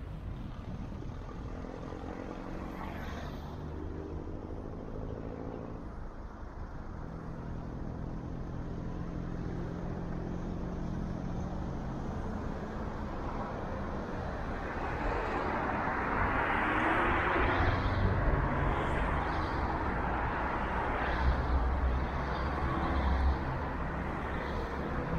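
Car being driven: engine hum shifting in pitch with speed, under tyre and road noise that grows louder and is loudest about two-thirds of the way through.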